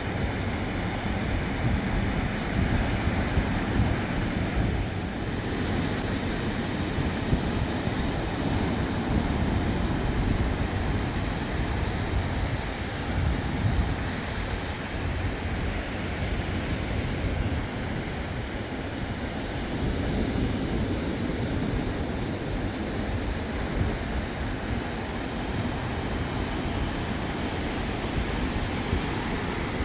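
Ocean surf: small waves breaking and washing up the sand at the water's edge in a steady wash of noise, with wind on the microphone adding a low rumble.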